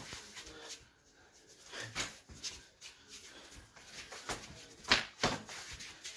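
Sparring with boxing gloves: scattered sharp slaps of punches and kicks landing. The loudest are two hits in quick succession about five seconds in.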